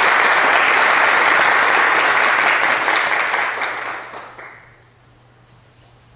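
Audience applauding, dying away between about three and five seconds in, leaving a low steady hum and quiet room noise.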